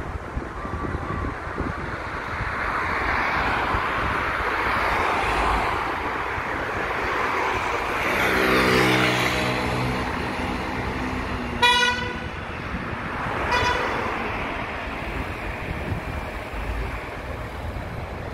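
City street traffic passing, with vehicles swelling past and a passing engine's low hum near the middle, then a vehicle horn tooting twice briefly, the first toot the louder.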